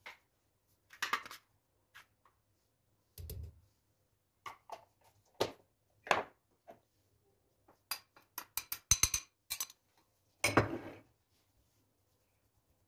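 Scattered clinks and taps of a metal spoon and a fine-mesh sieve against a glass mixing bowl while dry ingredients go into the batter. There is a quick run of small clicks about eight to nine and a half seconds in, and a louder knock-and-rustle a little after ten seconds.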